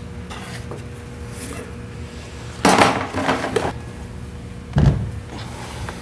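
Hard metal parts being handled and set down: a clatter about two and a half seconds in and a heavier thump near five seconds, over a steady low hum.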